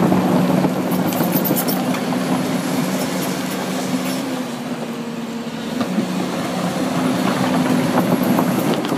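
Diesel engine of a Hyundai construction machine running with a steady hum. It drops a little around the middle, then grows louder again.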